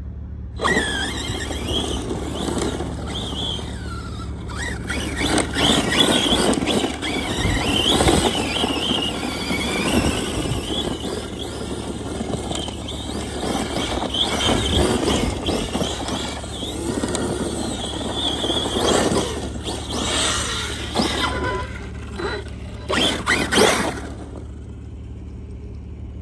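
Arrma Big Rock 6S brushless RC monster truck driven hard on loose dirt: a high motor whine that rises and falls with the throttle in repeated surges, over the noise of the tyres spinning and throwing up dirt.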